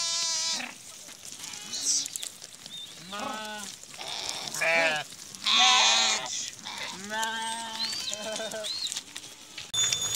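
A flock of sheep and goats bleating: about seven quavering calls from several animals, one after another, each lasting under a second. Near the end the sound cuts to a faint haze with a thin, steady, bell-like ringing.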